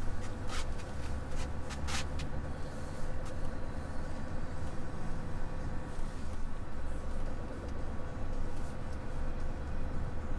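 A Scania heavy truck's engine running steadily, heard from inside the cab as the truck drives along, with road noise under it. There are a couple of short clicks about half a second and two seconds in.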